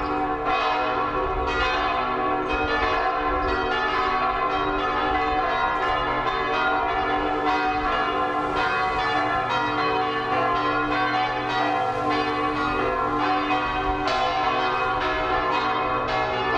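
Church bells ringing, several at once, their strokes overlapping in a steady, continuous peal.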